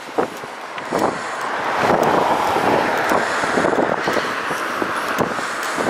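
A car driving past close by, its tyre and engine noise swelling about two seconds in and staying up.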